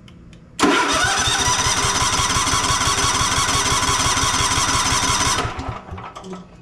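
Starter motor cranking the Cub Cadet Enduro XT2's 679cc fuel-injected engine for about five seconds, an even rapid chugging that stops without the engine catching. The engine won't fire because its ignition is producing no spark.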